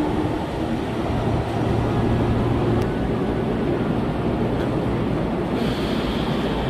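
Keihan 3000 series train standing at a station platform: a steady rumbling hum of the train and platform, with a low hum that comes in for a second or two about a second in.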